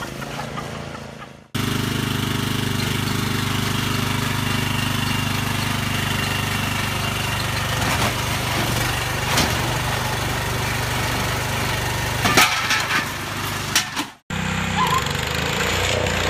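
Riding lawn mower engine running steadily, with a few sharp clanks and a clatter of knocks near the end. After a cut, another lawn tractor engine running.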